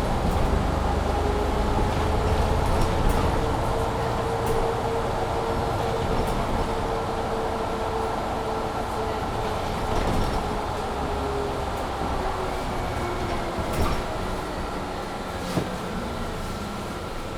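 Mercedes-Benz Citaro C2 G articulated bus with a Voith automatic gearbox, heard from inside the cabin while driving. A drivetrain whine rises slightly and then slowly falls over steady engine and road rumble, with a steady high tone from the heating and a few short rattles and knocks.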